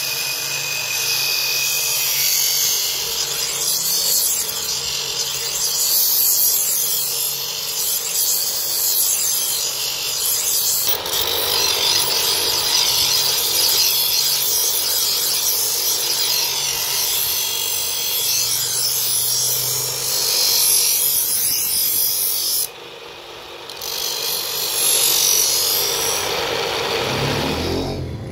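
Bench grinder's abrasive wheel grinding the file-steel blade of a knife: a harsh, steady, high hiss of steel on the wheel. It breaks off briefly about 23 seconds in, then resumes, and dies away near the end.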